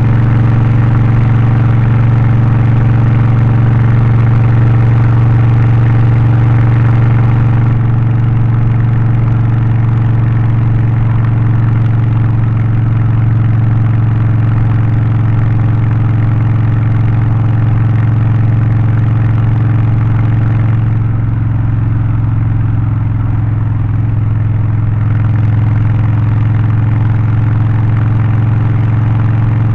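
Harley-Davidson Low Rider ST's V-twin engine with a Stage 1 tune and aftermarket exhaust, running at a steady pitch. It eases slightly about a third of the way in and again for a few seconds past the middle.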